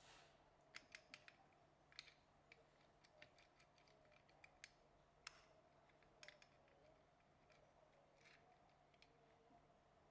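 Faint, irregular light clicks and taps, about fifteen over ten seconds, from small metal parts of a cast-iron hand-crank wine corker being handled and fitted during reassembly.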